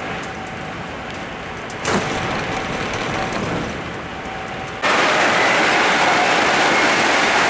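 Running noise inside an HST Mk3 passenger coach at speed, a steady rush of wheel and air noise. About five seconds in it jumps suddenly much louder, as heard in the vestibule by the doors.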